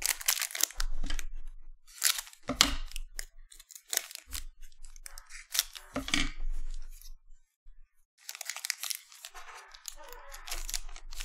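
Plastic wrapper of a trading card pack being crinkled and cut open with scissors, in a string of short crackling bursts, then handled in a longer stretch of crinkling as the pack is opened.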